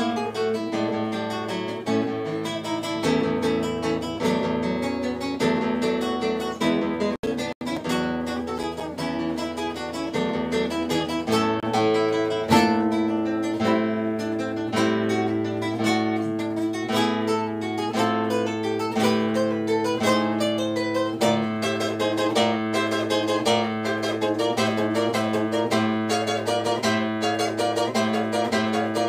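Background music of acoustic guitar, plucked notes over held bass notes. It cuts out for a split second twice about seven seconds in.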